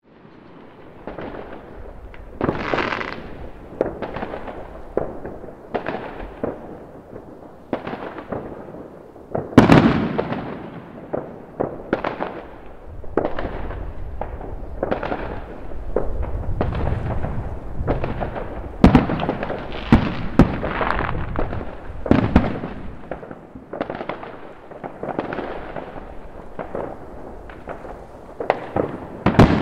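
Many fireworks exploding: a near-continuous run of bangs and crackles, each trailing off, with the loudest bang about ten seconds in.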